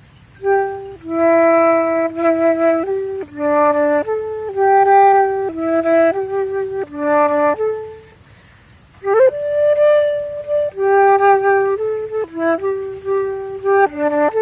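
A flute playing a slow improvised melody of held notes and short phrases. It starts about half a second in, pauses for about a second midway, then resumes with a note that slides up into the next phrase.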